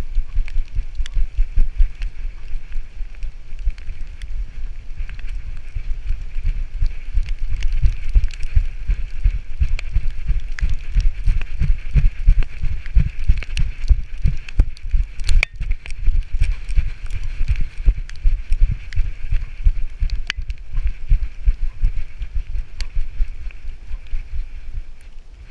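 A Labrador retriever running with a harness-mounted GoPro on her back: her strides jolt the camera in quick rhythmic low thuds, over a steady hiss and scattered small clicks.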